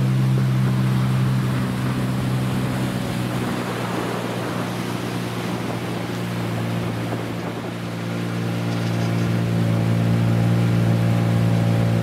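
A boat's motor running steadily under way, with the rush of water around the hull. The engine eases a little midway, then picks up again.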